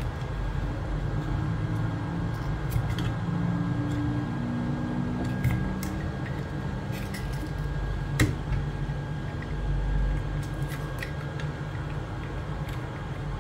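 Hot air rework gun blowing steadily, a constant airflow rush with a faint high whine, as it heats glued-in wires. Scattered small clicks of a metal pick against the plastic housing.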